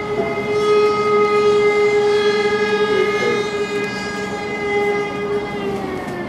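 Outdoor warning siren sounding the fire-brigade alarm, which calls out the volunteer firefighters. It holds one loud, steady wailing tone with many overtones and begins to wind down in pitch near the end.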